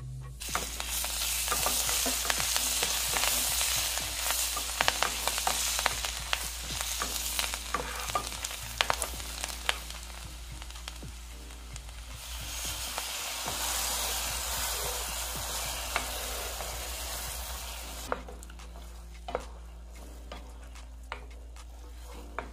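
Butter sizzling hard in a frying pan while a wooden spatula scrapes and taps through it, with sage leaves going into the browned butter. The sizzle dips briefly about halfway, then returns. Near the end it dies away as dairy turns the butter into a creamy sauce, leaving only occasional taps of the spatula.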